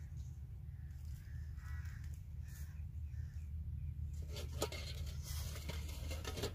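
Outdoor ambience: a steady low rumble, faint bird calls in the first half, and a patch of rustling crackles from about four seconds in.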